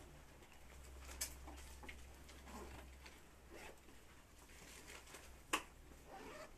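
Faint rustling and handling noises over a steady low hum, with two sharp clicks, one about a second in and a louder one near the end.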